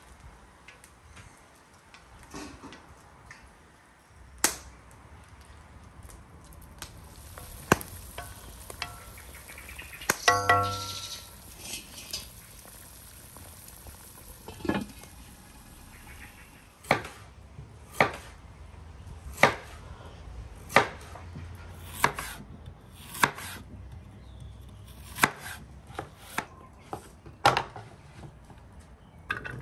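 Beef heart pieces stirred and sizzling in a wide pan over a wood fire, with scattered clinks and a brief metallic ring about ten seconds in. In the second half, a knife chops on a wooden cutting board, about one sharp strike a second.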